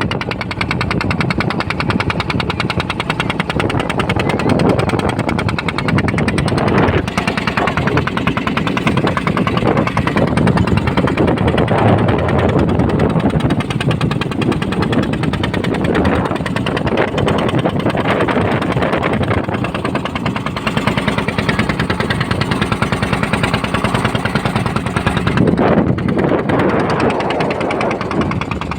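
Ferry boat's engine running steadily with a rapid, even chugging beat.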